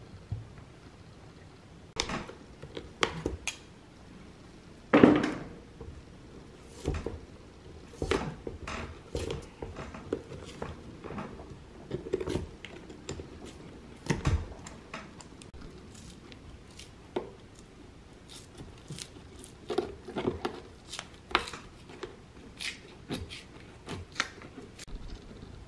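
Pincers and a knife taking apart a shoe's old leather sole and heel: a string of sharp clicks, snaps and short scrapes as the sole is pried, cut and pulled away, with one loud knock about five seconds in.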